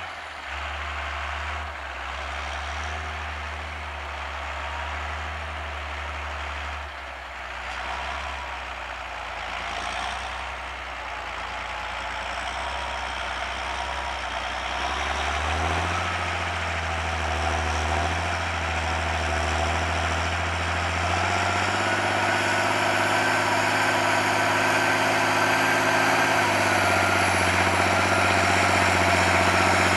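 A John Deere 8200 tractor's six-cylinder diesel engine is running while the tractor works with a plough. The engine note shifts several times and grows louder as the tractor comes closer. A steady whine joins about two-thirds of the way through.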